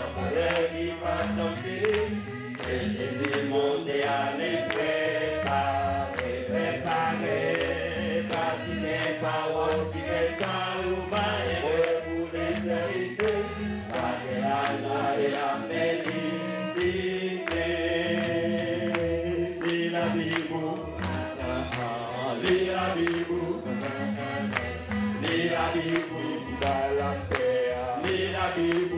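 A group of men singing a gospel song together into microphones, with rhythmic handclaps keeping time.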